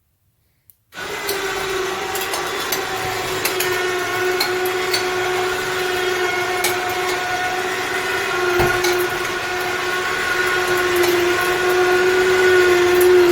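ATV electric winch starting about a second in and running under load on a straight pull to the ceiling: a steady motor whine with scattered ticks, its pitch sagging a little near the end.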